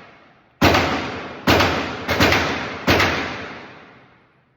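Five gunshots in an irregular rhythm, two of them fired in quick succession near the middle. Each shot is sharp and loud and rings out in a long echo that fades over about a second.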